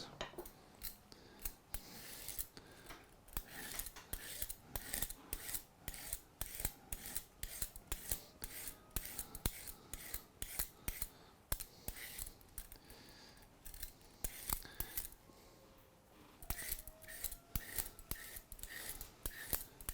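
A raw carrot being peeled: a run of short scraping strokes, about one or two a second, with a pause of a few seconds about two-thirds of the way through.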